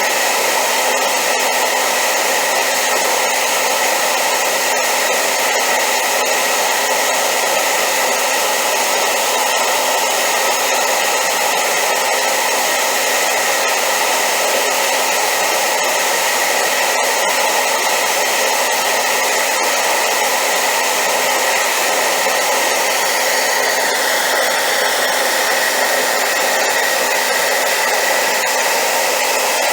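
Hair dryer running steadily on high power, a loud, constant rush of air with a faint steady hum in it; its tone shifts slightly about 24 seconds in.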